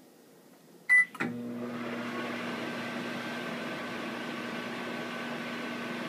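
A microwave oven's keypad beeps once as a button is pressed. About a second in the oven starts and runs with a steady hum and fan whir.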